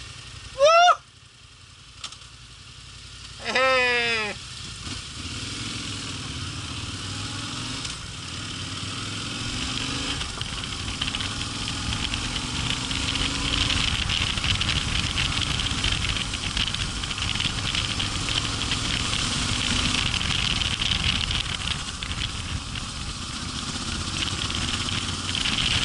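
Yamaha Ténéré 700's parallel-twin engine running as the motorcycle rides along a gravel track, with wind and tyre noise. Quiet for the first few seconds, then gradually louder as the bike gets under way.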